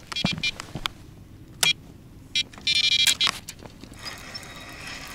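Fishing tackle handled while rebaiting: a scatter of small clicks and knocks with two short buzzy rasps, the second about half a second long, from the reel or line gear being worked.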